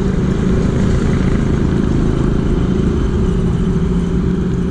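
Motorcycle engine running steadily at cruising speed on the road, mixed with rushing wind noise. A steady engine hum comes through a little more clearly about three seconds in.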